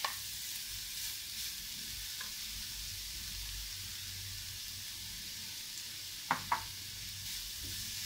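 Grated carrot sizzling in hot ghee in a nonstick frying pan as it is stirred with a wooden spatula: a steady frying hiss. Two quick knocks come a little after six seconds in.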